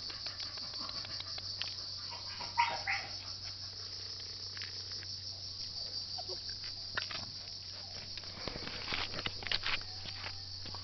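Steady high-pitched insect chirring, like crickets, over a low hum. Scattered light clicks and rustles run through it, most of them in the last few seconds, and one short louder sound comes about two and a half seconds in.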